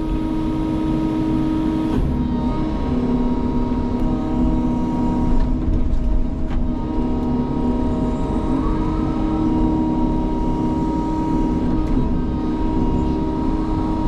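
Diesel engine and hydraulics of a Sany tracked excavator working as a harvester with a Vosch head, running steadily under work, with a few small clicks and brief changes in pitch.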